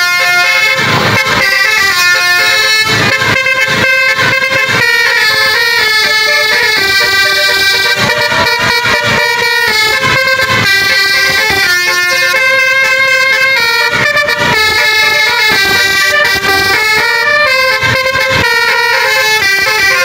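Multi-tone telolet basuri bus horn playing a melody, stepping from note to note with no break.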